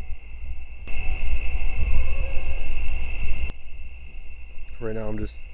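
Crickets chirping steadily in a high, continuous drone, louder for a couple of seconds from about a second in, over a low rumble. A man's voice begins near the end.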